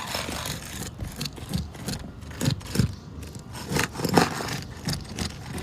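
Irregular scraping and knocking on asphalt roof shingles, a run of short rough strokes with a few harder knocks near the middle.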